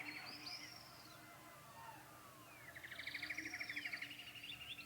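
Faint birdsong from several birds: a rapid trill near the start and again past the middle, with short whistled notes sliding down over it, over a faint steady low hum.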